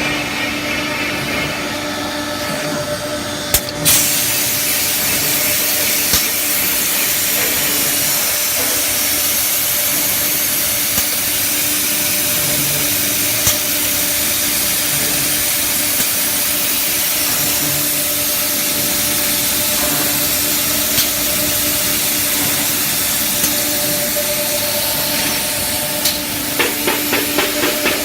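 SUDIAO S5 CNC nesting machine running: a steady hum under a loud hiss. After a click about four seconds in the hiss gets louder, and a quick run of ticks comes near the end.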